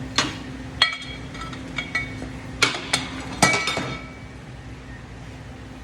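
Metal hand tools and engine parts clinking: a string of light, ringing metallic clinks over about four seconds, then they stop.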